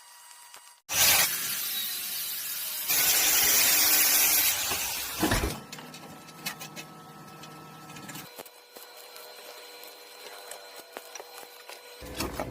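Electric arc welding, crackling and hissing as a nut is welded onto the steel of a gas cylinder. It starts abruptly about a second in, is loudest around the middle, and stops about five seconds in, with a fainter sound lasting until about eight seconds.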